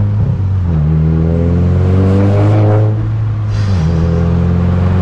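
Volkswagen Scirocco R's turbocharged 2.0 TSI four-cylinder, with a full straight-through exhaust, accelerating hard through the gears. It is loud, heard from inside the cabin. The pitch climbs steadily between two upshifts, one about half a second in and one near the end.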